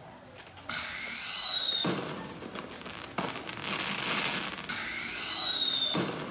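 Firework sound effects from an LED fireworks light: twice, a whistling rocket launch, falling slightly in pitch, ends in a sharp bang followed by crackling. The two cycles are identical, as a looped recording would be.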